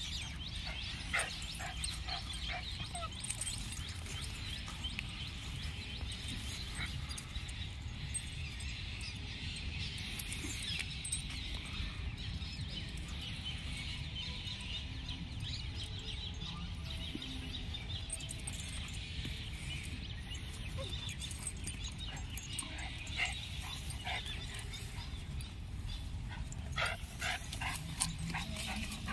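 Dogs play-fighting, with scattered yips and whines and the clinking of metal tether chains.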